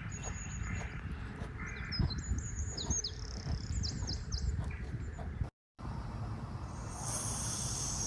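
Outdoor ambience: a steady low background rumble with several short, high, falling chirps in the first few seconds and a high trill near the end. The sound drops out completely for a moment a little past the middle.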